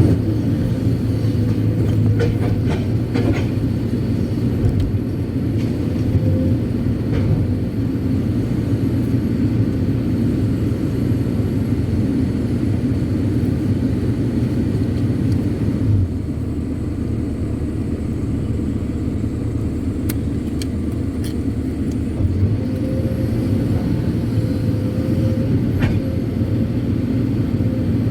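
Kobelco SK200-8 Super X excavator's diesel engine and hydraulics running under working load, heard from inside the cab as a steady drone. It eases off for a few seconds past the middle, with a few sharp clicks.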